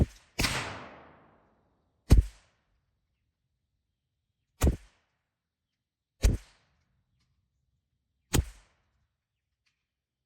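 Five shots from a CZ 457 .22 LR bolt-action rifle, spaced about two seconds apart, each a sharp crack with a short decay, after one sharp click at the very start.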